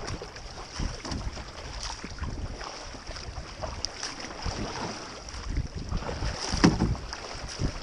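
Kayak paddle strokes, the double blades dipping and splashing in the river water, with wind rumbling on the microphone. One louder splash comes late on.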